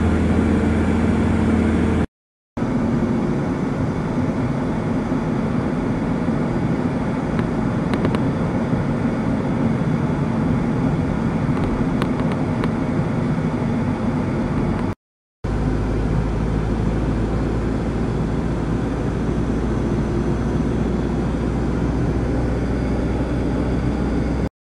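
Steady engine and road noise heard from inside a moving minivan. The sound drops out briefly twice, about two seconds in and again around fifteen seconds. After the second break a deeper low rumble comes in.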